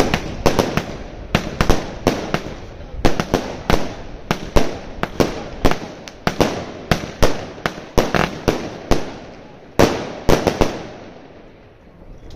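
Pirotecnia El Gato 'Nueva Generation 1' 50-shot, 20 mm consumer fireworks cake firing: a rapid string of sharp bangs, about three a second. The bangs stop near the end as the last shots burst.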